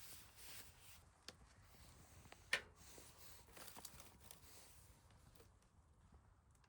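Quiet handling of food packaging: faint rustling of plastic wrappers, with a small click and then a sharper click about two and a half seconds in.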